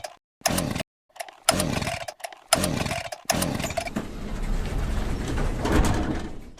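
Chainsaw engine in short repeated bursts, each one falling in pitch as it dies away, typical of a saw that will not keep running. About three seconds in comes a longer stretch of running.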